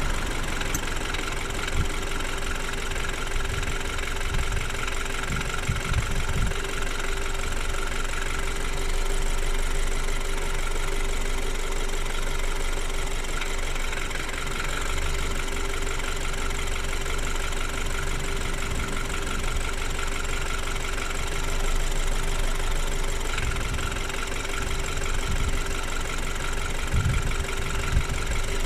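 BMW N20 2.0-litre turbocharged four-cylinder engine idling warm, running steadily with a light clatter. The owner hears more clattering in Drive than in Neutral and is unsure whether it is normal.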